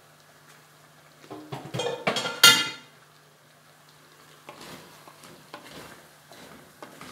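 Metal cookware clattering and ringing on the gas stove for about a second and a half, loudest about two and a half seconds in. Then softer knocks and scrapes of a wooden spoon stirring in the cooking pot, over a faint steady low hum.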